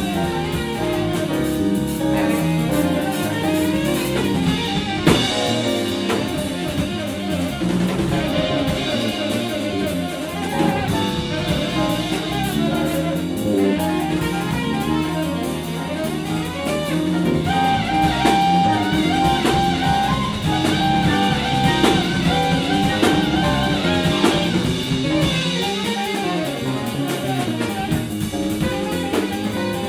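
Jazz band playing a tune, with drum kit and guitar under the melody.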